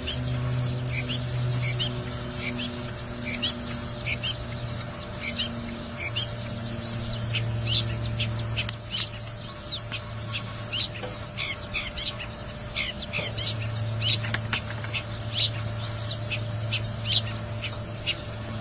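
Long-tailed shrike (cendet) singing in the wild: a quick, varied run of short chirps and whistles, over a steady low hum.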